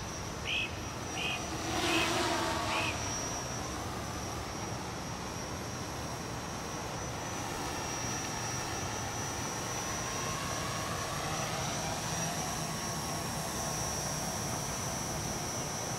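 Electric motors and propellers of a radio-controlled tricopter buzzing in flight, the pitch drifting up and down as it manoeuvres. Four short high chirps in the first three seconds.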